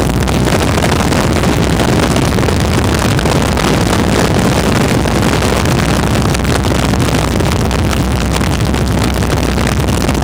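WACO biplane's engine and propeller running steadily in cruise, heard from the open cockpit with the rush of wind over the microphone; loud and unbroken.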